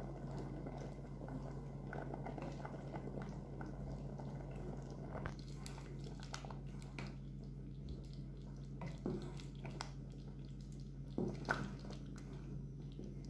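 Tomato-and-rice soup simmering in a metal pot while it is stirred with a wooden spoon: soft bubbling and squelching of the thick liquid, with a few soft knocks from the spoon against the pot. A steady low hum runs underneath.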